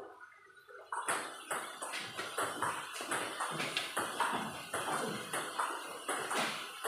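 Table tennis rally: the ping-pong ball clicking off the paddles and the table in quick, even succession, starting about a second in.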